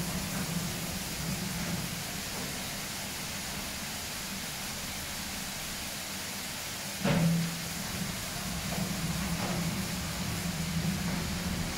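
Automatic rollover car wash spraying water and foam over a car: a steady hiss of spray over a low machine hum. About seven seconds in there is a sudden short loud burst, and the hum is stronger after it.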